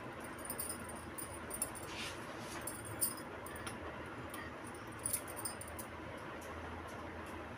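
Glass bangles clinking irregularly and net fabric rustling as the fabric is folded into gathers by hand, over a low steady hum. The sharpest clinks come about three and five seconds in.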